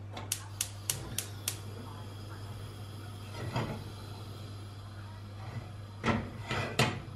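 Gas hob spark igniter clicking five times in quick succession, about three clicks a second, as the burner under a stainless-steel saucepan is lit. Then come a few knocks and scrapes as the saucepan is moved on the hob's metal pan supports, over a steady hum.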